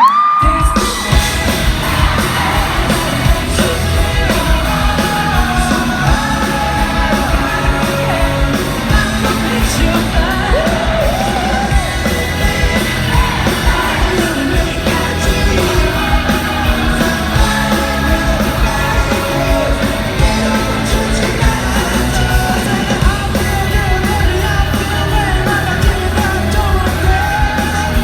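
Live rock band music with a singer over drums and bass, with a steady beat throughout.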